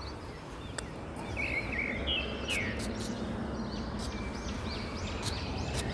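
Small birds chirping in short calls over a steady outdoor background hum, with a couple of brief sharp ticks.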